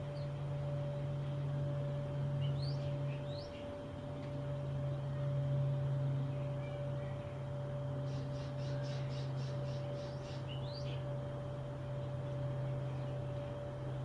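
Small birds chirping: a few short rising chirps about three seconds in, then a quick trill of about ten notes around eight seconds in, followed by more rising chirps. A steady low hum runs beneath them and is the loudest sound.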